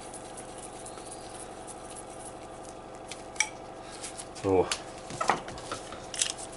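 Light metallic clicks and clatter of a spray gun and small hand tools being handled and set down on a workbench, over a steady faint hum. A sharp click comes about three seconds in, and a cluster of clinks follows from about four and a half seconds on.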